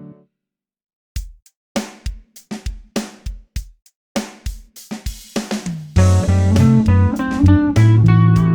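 A band backing track with electric guitar: the previous track fades out right at the start, followed by about a second of silence. Drums alone then play a beat, and about six seconds in guitar and bass come in loud with sustained chords over the drums.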